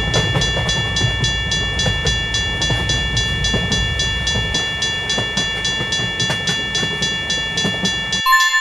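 Level-crossing warning bell ringing in rapid, even strikes over a steady ringing tone, while a train rumbles past; the rumble stops about eight seconds in and the bell a moment later.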